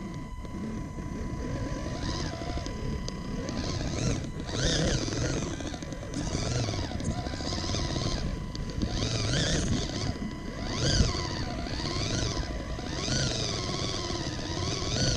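Radio-controlled rock crawler's electric motor and gears whining, the pitch rising and falling over and over as the throttle is worked, over a rumble of its tyres rolling through mud and dirt.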